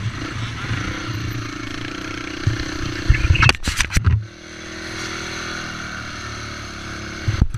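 Race quad's engine running at low revs as it rolls slowly along a dirt track. About three and a half seconds in, a short burst of knocks and rubbing as a gloved hand touches the camera, after which the engine runs quieter and steady; another brief clatter comes near the end.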